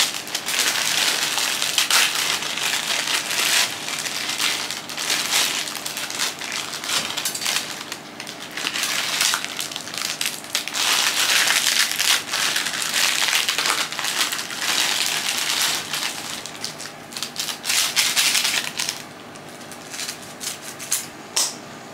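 Plastic instant-noodle wrappers crinkling and dry Indomie noodle blocks being crushed and broken into a pan, a dense crackling. It dies down near the end to a few sharp snips of scissors cutting open the seasoning sachets.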